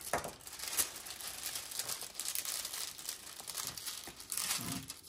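A diamond painting canvas and its clear plastic cover film crinkling and crackling as they are pressed and smoothed flat by hand and with a plastic scraper.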